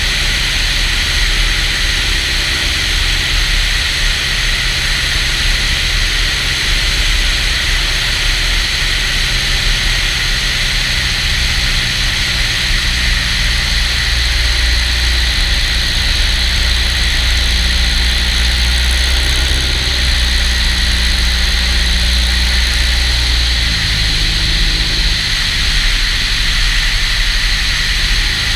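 Kitfox light aircraft's piston engine and propeller running steadily under a constant rushing hiss, the engine note changing speed a few times.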